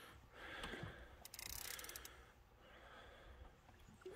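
Faint fishing reel and rod handling noise while a fish is played on a bent rod, with a quick run of reel clicks about one and a half seconds in.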